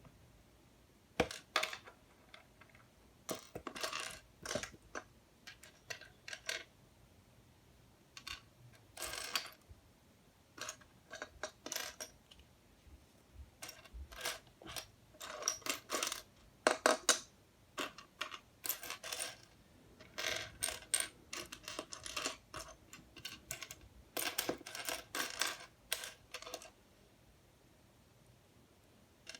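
Small plastic LEGO Technic pieces clattering and clicking as they are handled and pressed together, in irregular bursts of rattles with short pauses between.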